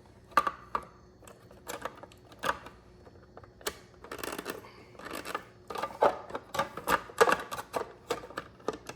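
Plastic back cover of a Keurig K-Duo Essentials coffee maker being fitted onto the housing: irregular clicks and knocks of plastic on plastic with brief scraping, as its pins are worked into the locks.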